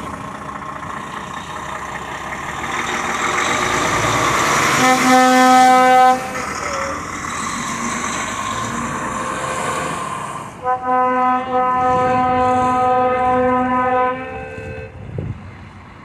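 DAF XF lorry's air horns sounding twice as it pulls away over its diesel engine. First comes a blast of about a second, then a longer one of about four seconds that breaks briefly twice near its start. The engine grows louder as the lorry moves off and fades as it drives away.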